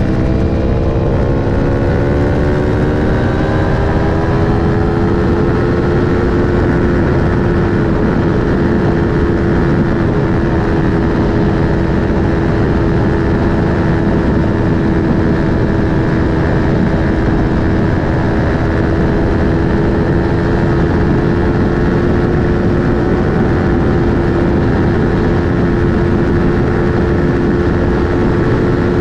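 Aprilia Tuono V4 1100 RR's V4 engine through an Akrapovic slip-on exhaust, pulling higher in revs over the first five or six seconds and then holding a steady high-speed cruise. Heavy wind and road noise run underneath.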